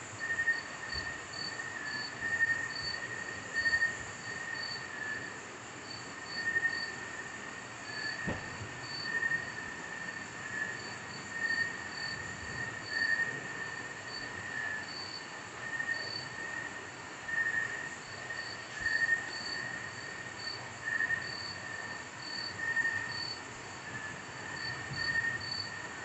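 Tropical jungle insect chorus at night: a steady high-pitched drone with layers of pulsing chirps, swelling every second or two.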